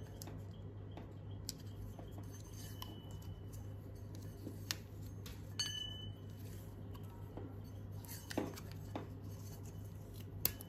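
Hand work on small parts: scattered sharp clicks and snips, with two brief metallic pings about three and six seconds in, over a steady low hum.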